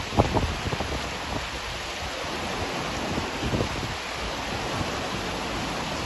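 Fast, shallow river rushing over rocks, a steady hiss of water, with gusts of wind buffeting the microphone.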